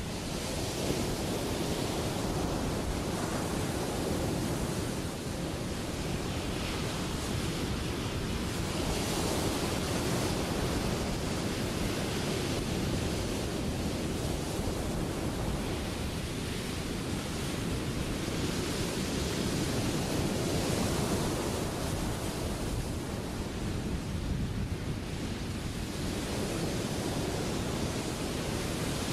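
Ocean surf: a steady rush of breaking waves and white water that swells and eases every few seconds.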